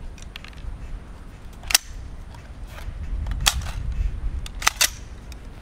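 Four sharp metallic clacks from an AR-15-type rifle's action as a magazine is slapped in and the bolt release is hit, sending the bolt forward. The first clack, about two seconds in, is the loudest, and the last two come close together. The rifle is failing to chamber from Lancer magazines.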